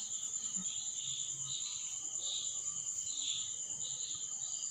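Insects chirring: a steady high-pitched trill, with a second, lower call pulsing about twice a second.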